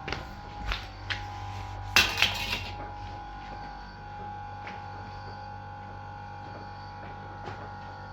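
A few light knocks of hard household objects, then a louder clatter of several impacts about two seconds in, over a steady hum.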